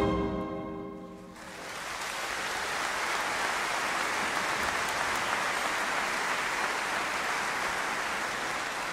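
The final chord of the symphony orchestra and choir dies away in the first second or so, then audience applause starts up, builds and holds steady.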